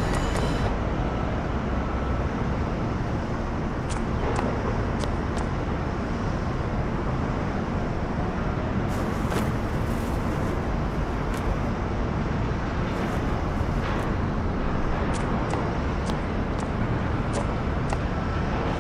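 Steady low rumbling outdoor ambience with scattered faint clicks.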